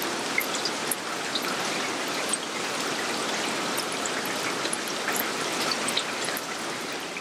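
Rain falling on a wet surface and puddles: a steady hiss with many scattered, sharp drop ticks.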